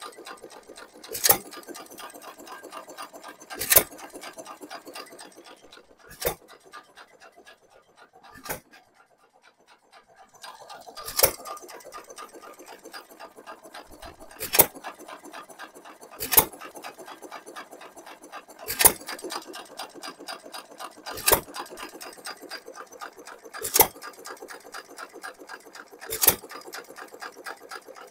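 Sandwich Cub 1-1/2 hp hit-and-miss engine running on its own, firing with a sharp pop about every two and a half seconds and coasting between fires with a fast mechanical clicking. The clicking drops away for a couple of seconds near the middle.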